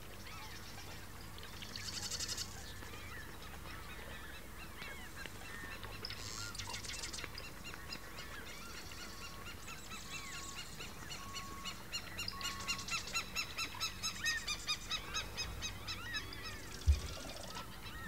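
Barn swallow song: a long run of twittering, chattering chirps, with a quicker series of evenly spaced notes about two-thirds of the way through. A single low thump sounds near the end.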